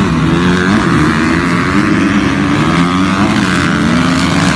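A pack of motocross dirt bikes revving their engines together and pulling away from the start gate, several engine notes overlapping and rising and falling in pitch.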